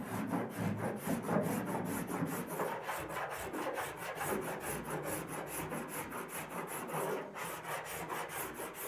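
Cheese-grater body filler file rasping across partly set body filler on a car panel, in quick even back-and-forth strokes of about five a second. It is shaving down the high spots while the filler is still setting up.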